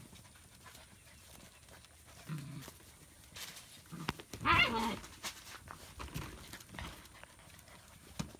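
German Shepherd puppies vocalising as they play: a short low sound about two seconds in, then one loud, wavering yelp about halfway through.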